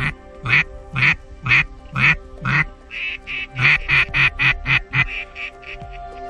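Duck quacking over background music: about six loud, evenly spaced quacks half a second apart, then a quicker run of a dozen or so softer quacks that trails off.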